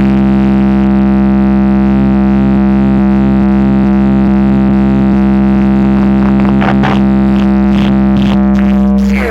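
Loud, steady electronic bass drone from a DJ bass-test track: one held low tone with many overtones, with faint sweeping effects over it in the last few seconds.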